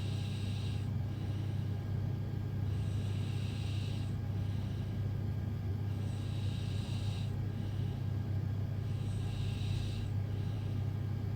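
A sleeping girl snoring softly: a hissy breath about every three seconds, each lasting just over a second, four in all, over a steady low hum.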